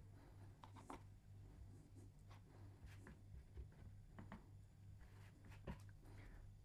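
Faint, irregular scrapes and light taps of a filling knife smoothing wet filler over a plasterboard patch, over a low pulsing hum.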